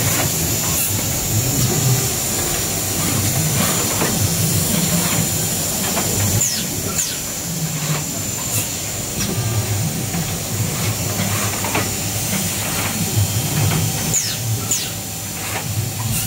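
Injection moulding machine with its in-mould-labelling robot running: a steady machine hiss and hum with a thin high tone over it, and scattered short clicks as the robot works.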